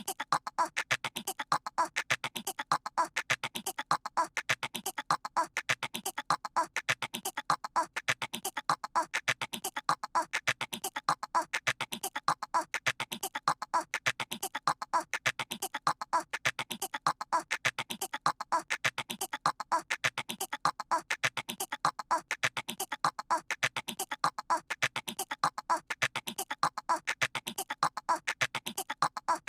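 A voice imitating a squirrel with rapid chattering, the same short stretch repeating over and over in a loop.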